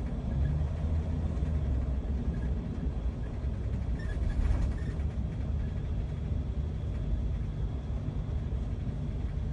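Steady low rumble of a car driving at road speed, heard from inside its cabin: engine and tyre noise.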